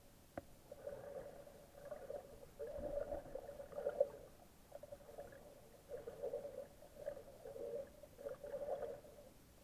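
Muffled underwater sound heard through an action camera's waterproof housing: a single click about half a second in, then irregular surges of low gurgling noise with a faint steady hum in them.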